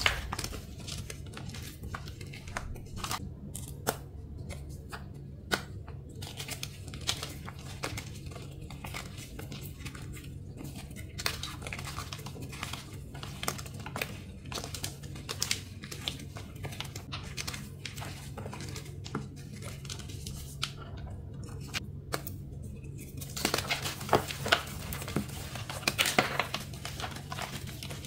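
Thin blocks of reformed gym chalk being crushed and crumbled, a long run of crisp crunches and crackles that grows denser and louder about three quarters of the way through, over a steady low hum.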